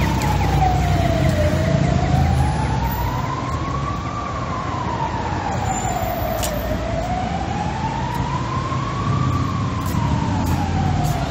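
Emergency vehicle siren on a slow wail, its pitch rising and falling about once every five seconds, over the low rumble of street traffic.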